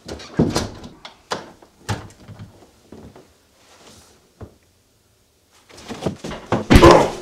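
A few dull thunks against a wooden door, then a pause, then a sudden loud crash and commotion near the end.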